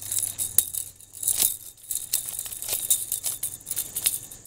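Irregular crackling and scraping clicks close to the microphone, a few sharper snaps among them, over a low steady hum.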